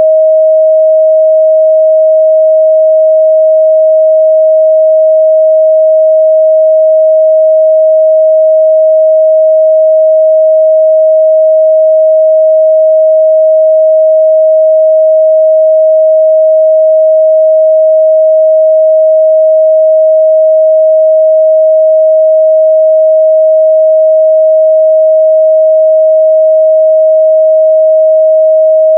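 Steady pure sine-wave test tone at 631 Hz, held at one constant pitch and level.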